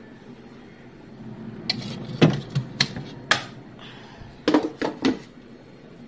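Plastic food-storage boxes of frozen meat and fish knocking and clattering as they are handled, set down and stacked: a run of sharp knocks, one cluster in the middle and another near the end.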